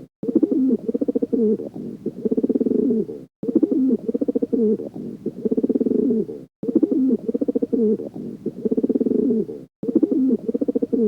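Pigeon cooing: low, rolling coos in repeated phrases. The same sequence starts over about every three seconds after a brief silent break, as in a looped sound effect.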